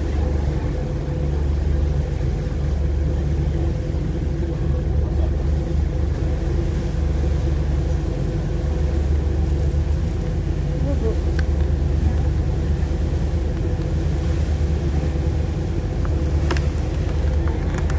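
Harbour ferry's engine running at cruising speed: a steady, deep drone with a constant hum.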